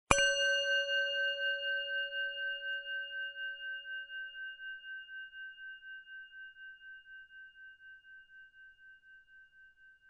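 A single gentle bell strike marking the end of a ten-minute timer: one stroke, then a long ring of several steady tones, the highest dying first, that fades slowly with a regular waver about three times a second and stops abruptly near the end.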